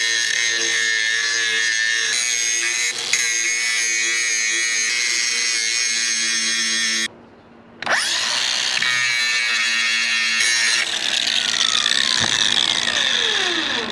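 Angle grinder running with a steady high whine, grinding the steel clean for welding. It cuts out about seven seconds in and starts again under a second later, and its pitch sags in the last few seconds.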